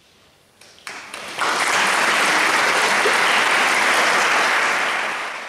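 Audience applauding after the choir's final chord has died away. It starts about a second in, quickly swells to a steady level, and fades out at the end.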